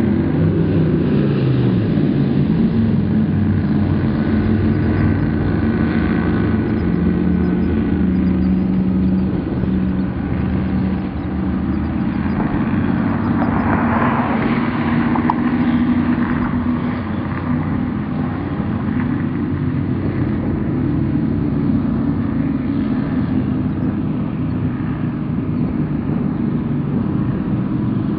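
Powerboat engines running steadily at speed, a loud continuous drone over the rush of water and wind. The engine note dips a little in the first couple of seconds, then holds steady.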